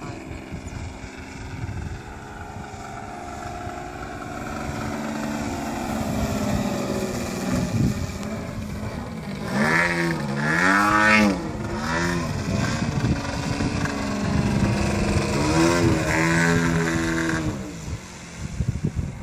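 Piped ZDZ 90 single-cylinder two-stroke gas engine of a large RC Extra 330 aerobatic plane in flight, its note rising and falling in pitch, loudest about ten seconds in and again around sixteen seconds. Wind rumbles on the microphone underneath.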